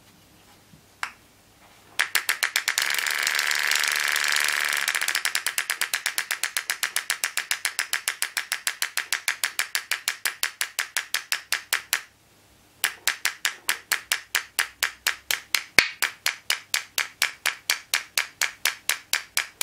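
Super EZ pulse graver's 3D-printed PETG handpiece hammering: its piston strikes the graver in a fast run of sharp clicks, at first so rapid they run together, then settling to several strokes a second. The strokes stop briefly about twelve seconds in and then resume at a steady rate, with the handle wound out for a longer, more powerful stroke.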